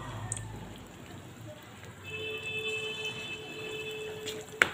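Poha pakoras sizzling as they deep-fry in hot oil in an iron karahi, a steady hiss. A steady tone sounds in the background through the second half, and a single sharp clink comes near the end.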